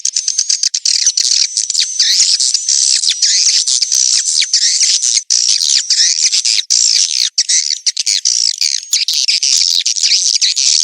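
Edible-nest swiftlets twittering and chirping in a dense, continuous chorus laced with rapid clicks. This is a courtship ('birahi') call recording used as a lure to draw swiftlets into a nesting house.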